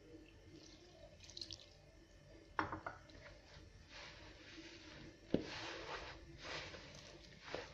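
Warm water splashing into a bowl of semolina and flour while a hand works it into a wet dough, with a few sharp knocks against the bowl.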